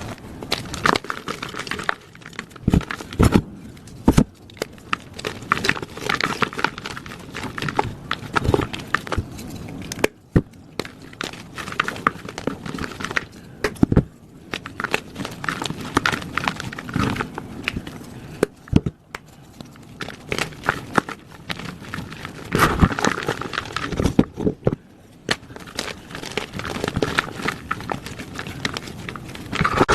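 Blocks of plain gym chalk being crushed: a dense, irregular run of dry crunches and crackles, broken by a few short pauses.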